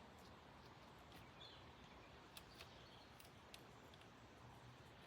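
Near silence: faint outdoor background with a few light clicks.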